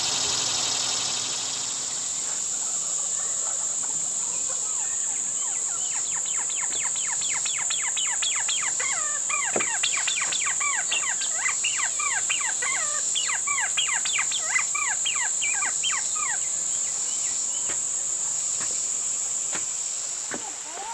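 A steady, high-pitched drone of insects, with a bird calling a rapid run of downward-sliding notes, about four a second, for some twelve seconds in the middle.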